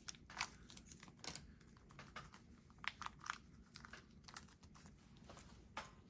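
Faint crinkling and scattered light clicks of a small plastic parts bag being opened and handled to take out a motor plate.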